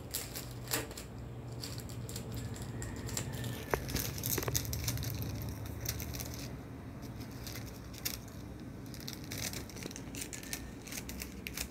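Clear cellophane bag crinkling and crackling in irregular rustles as it is handled and tied shut with ribbon, over a low steady hum.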